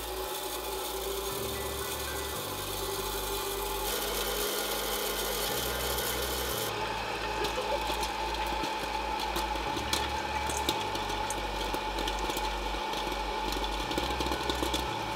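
Electric popcorn popper running, its motor giving a steady whine that shifts in pitch a few seconds in. A patter of sharp clicks builds through the second half as the kernels start to pop.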